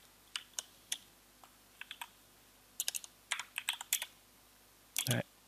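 Typing on a computer keyboard: a few scattered key presses, then a quicker run of keystrokes about three seconds in, and a louder press near the end, as a coordinate is typed into a CAD command line.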